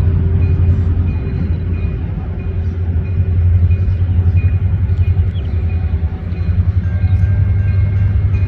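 Freight train rolling past with a steady, loud low rumble that pulses unevenly, and a faint high tone coming and going above it.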